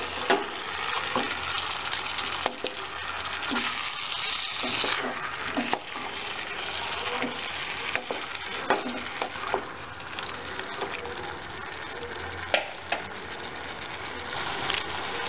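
Marinated chicken pieces sizzling as they fry in butter and oil in a pan, with a steady hiss and scattered sharp clicks of a spoon being worked through the pan.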